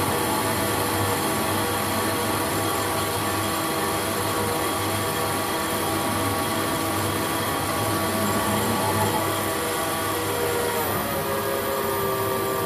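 Holbrook C8 metal lathe running under power with a steady whine of several tones while its carbide tool turns a small hardened-steel bar. Near the end the whine steps slightly lower in pitch.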